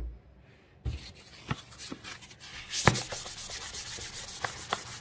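Rapid back-and-forth scrubbing of the sink surface with an eraser sponge and Windex, working at stuck-on grime, with a few sharp knocks. The scrubbing starts about a second in and gets quicker and denser near the middle.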